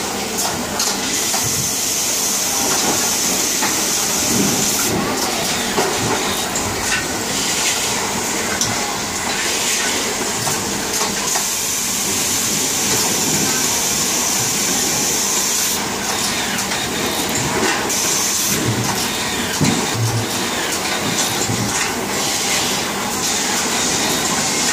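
Steady noise of production-line machinery: a constant loud hiss, strongest in the first five seconds, with scattered clicks and knocks.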